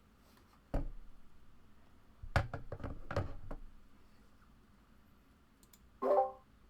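A single thump about a second in, then a quick run of knocks and taps, with a short spoken sound near the end.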